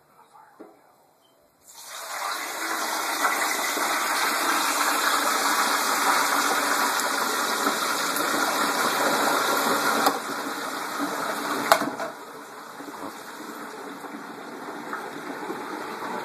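Hot oil in an electric turkey fryer erupting into a loud, steady sizzle and bubbling as the turkey is lowered in, starting suddenly about two seconds in. About twelve seconds in there is a sharp click and the sizzle drops to a quieter, muffled hiss as the fryer lid is shut.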